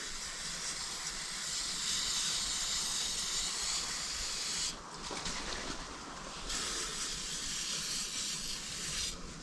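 Aerosol can of anti-corrosion spray hissing onto battery terminals, in two sprays: a long one of about four and a half seconds, then after a short pause a second of about two and a half seconds.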